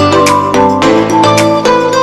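Background music: a melody of plucked or keyboard notes over sustained chords, loud and even.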